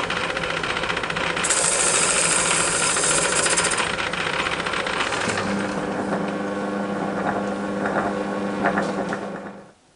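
Metal lathe running, its tool cutting the face of a cast flywheel with a dense rattling hiss. A steady hum comes in about halfway, and the sound falls away suddenly near the end as the lathe stops.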